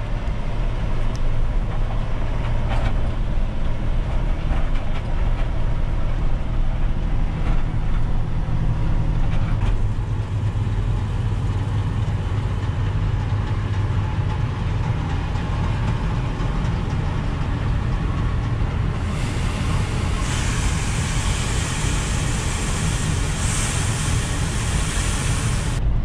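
Farm tractor's diesel engine running steadily, heard from inside the cab, with a combine harvester working close alongside. About three-quarters of the way through a loud hiss joins in.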